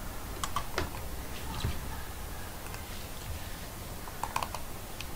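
A few scattered clicks of a computer keyboard and mouse, a small cluster of them about four seconds in, over a low steady hiss.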